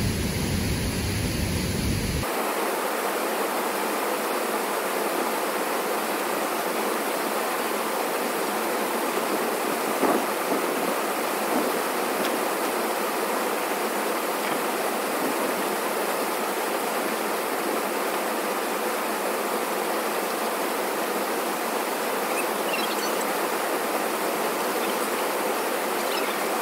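Steady rush of a waterfall and mountain stream running high after rain. In the first two seconds the sound also carries a deeper rumble.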